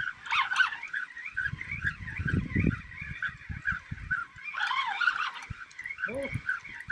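Birds calling over and over with short, high, pitched notes, about three or four a second. There is a low rumble in the middle, like wind on the microphone.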